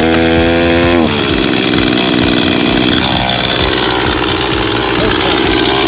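A handheld small-engine power tool for clearing land, running at high revs. For about a second it holds a high, clear pitch, then the pitch drops and it runs on steadily under load.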